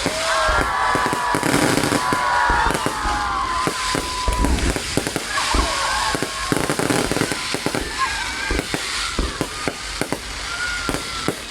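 Fireworks going off in quick succession, many sharp bangs and crackles overlapping without a break.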